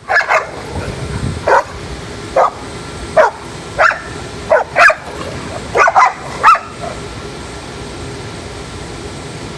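Dogs barking back and forth in short, sharp yips, about nine in the first seven seconds, then they stop: a 10-month-old puppy talking back while an older dog corrects him. A steady fan-like hum runs underneath.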